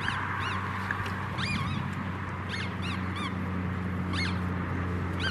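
Rottweiler puppies squealing and whining in short, high, rising-and-falling cries at irregular intervals during a tug-of-war over a cloth toy.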